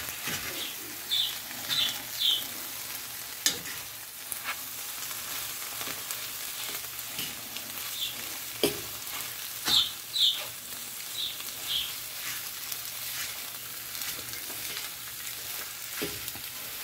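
Eggs with pepperoni and spinach sizzling in a nonstick frying pan while a metal utensil stirs them. The utensil scrapes and taps against the pan, with short scrapes in clusters near the start and again about ten seconds in, over the steady sizzle.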